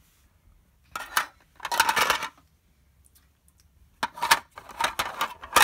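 Toy food pieces, a pizza slice and a fried egg, clattering and knocking against each other as they are handled, in short bursts about one and two seconds in, then a longer run of rattling from about four seconds in.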